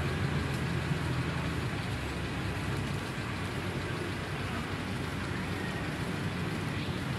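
Street traffic noise, with a vehicle engine running more strongly in the first couple of seconds before easing off.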